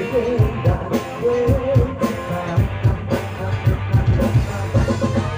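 Live band music played through a PA: electric bass guitar, keyboard and drums with a steady beat, and a male singer's voice carrying the melody.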